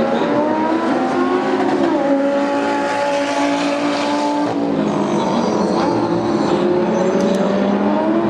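Lamborghini Super Trofeo race car's V10 engine at high revs on a wet track, climbing in pitch with an upshift about two seconds in, over the hiss of spray from the tyres. About halfway through the sound breaks off abruptly into another car's engine, rising again.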